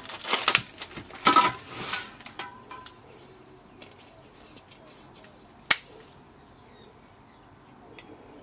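Plastic shrink wrap rustling and tearing as a pack of metal butane gas canisters is unwrapped and handled, busiest in the first two seconds or so. Then quieter, with one sharp click a little past halfway as a plastic cap comes off a canister.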